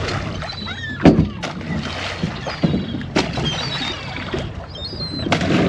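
Boat motor running steadily under repeated short cries of seagulls circling over the boat for thrown fish scraps. A few sharp knocks, the loudest about a second in.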